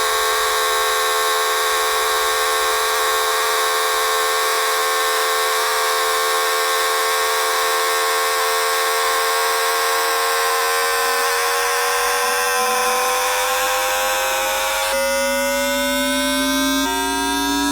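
Times Electric tPower-TN28 VVVF traction inverter of a Shenzhen Metro Line 14 train, picked up through an inductor. It gives a steady electronic whine of several tones that begins rising in pitch about ten seconds in as the train accelerates. About fifteen seconds in it switches abruptly to a different set of rising tones, a change in the inverter's switching pattern.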